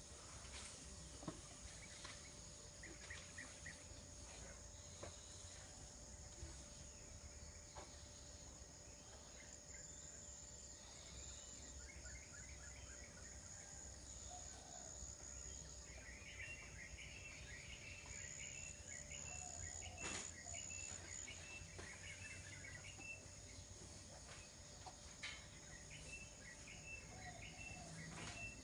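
Faint rural ambience: a steady high insect trill with runs of repeated short bird chirps that come and go, and a few faint clicks.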